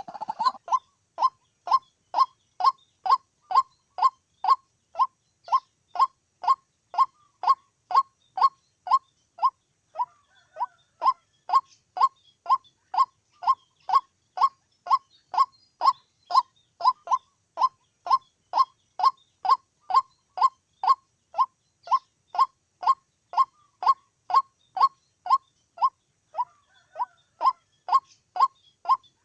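White-breasted waterhen calling: a long, monotonous series of single identical notes, about two a second, with a short break about ten seconds in.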